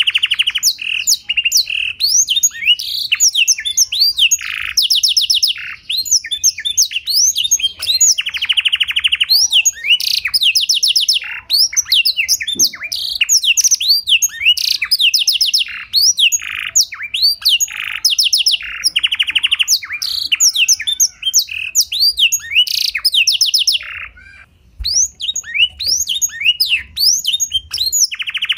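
A domestic canary tutored on blackthroat song sings a long, continuous, clear, high song. It is made of rapid trills, rolling strings of repeated notes and sweeping whistled notes, with a brief pause near the end.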